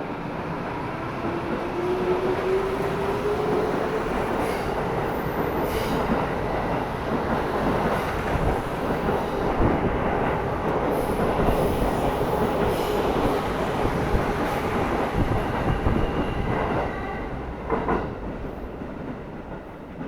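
Tokyo Metro 15000 series train pulling out and accelerating away: the traction-motor whine rises in pitch over the first few seconds, then gives way to a steady rumble of wheels on rail with sharp clacks over the rail joints. The sound fades near the end as the train leaves.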